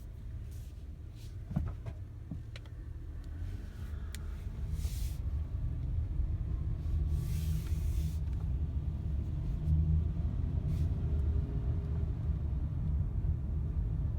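Inside a Honda Odyssey minivan while driving: steady engine and road rumble that grows louder as the van picks up speed, with a couple of light clicks about a second and a half in and two short rushes of hiss in the middle.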